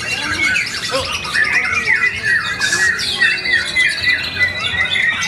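White-rumped shamas (murai batu) singing nonstop, with several birds' songs overlapping in a dense, continuous stream of quick whistles, trills and rapid note runs.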